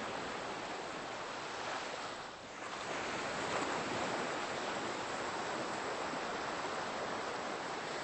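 Ocean surf washing onto a beach: a steady rush of breaking waves, with a brief lull about two and a half seconds in.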